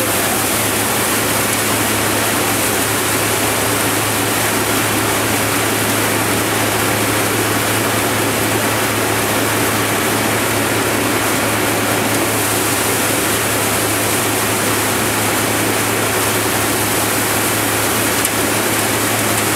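Valasumani multicrop thresher running at a steady speed: a constant loud mechanical din with a low hum, as threshed grain streams from its outlet chute into a plastic tub.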